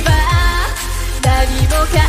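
Electronic pop song with a woman singing over a beat, with deep bass hits that drop in pitch.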